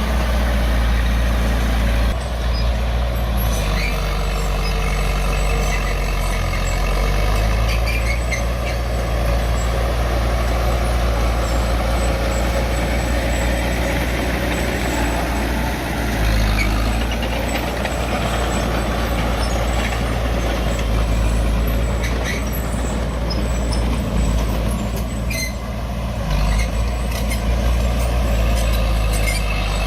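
Heavy earthmoving machinery working dirt: a big engine running continuously, its pitch shifting up and down several times as the load changes. Scattered metallic clanks come mostly in the second half.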